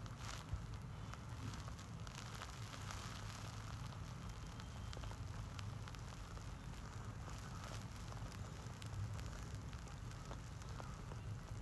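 Chicken pieces deep-frying in hot oil: a steady sizzle with many small crackles.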